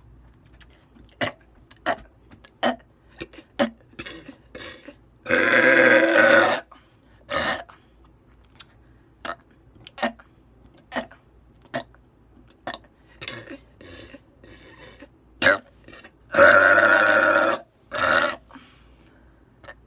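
A woman belching loudly: two long belches of about a second each, each followed by a shorter one, with short clicking sounds in between.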